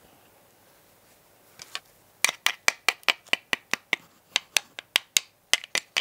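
A quick series of light, sharp taps, about five a second with a short break in the middle: a thin rod tapping a small flock-covered plastic model-car floor piece, knocking loose flocking fibres off it.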